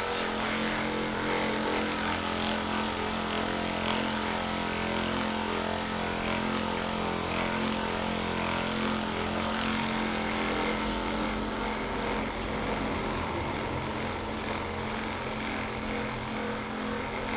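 Electric massage machine running with a steady motor hum; its sound shifts slightly about ten seconds in.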